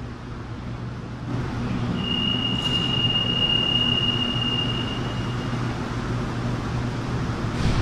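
CAF-Thales AS-14 metro train standing at the platform with a steady low electrical hum that grows louder about a second in. About two seconds in, a steady high electronic beep sounds for nearly four seconds.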